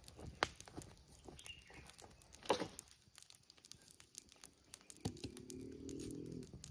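Wood campfire crackling with scattered sharp pops, one louder snap about two and a half seconds in. About five seconds in, a steady low droning hum joins it.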